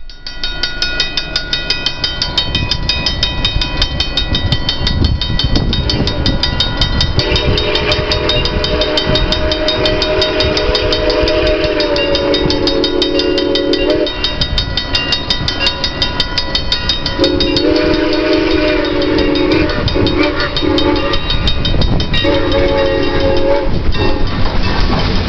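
Railroad crossing bells ringing steadily while a locomotive's multi-note chime sounds the grade-crossing signal: long, long, short, long, the first blast about seven seconds long. Near the end a heavy train's rumble rises as it reaches the crossing.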